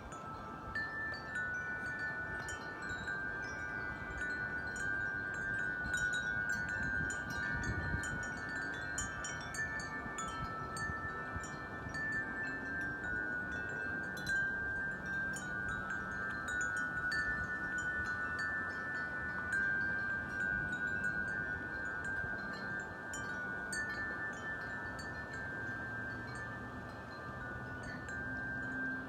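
Wind chimes ringing without a break in the wind, several tuned tones struck and sustained over one another. A brief low rumble comes about seven to eight seconds in.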